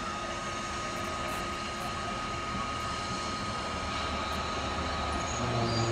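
Steam locomotive moving slowly past, a steady hiss of steam over a low rumble, growing a little louder near the end.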